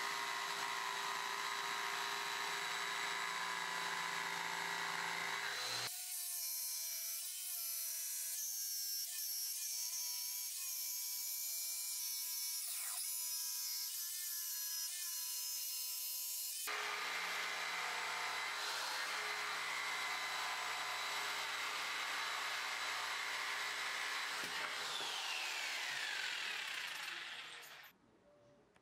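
Corded jigsaw running and cutting curves in a walnut board. Between about 6 and 17 seconds the sound is thinner, with a wavering motor pitch, and it fades out near the end.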